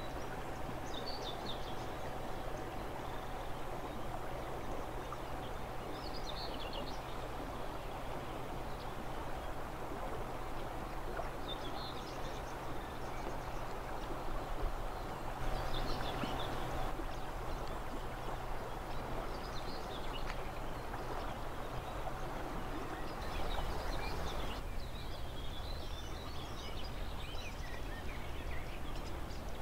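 Steady rush of the San River's flowing water, with songbirds calling in short chirping phrases every few seconds, over a faint steady hum.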